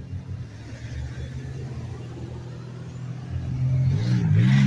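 Car engines idling with a steady low hum. Near the end a car accelerates across the tracks close by, its engine note rising and wavering over the hiss of its tyres.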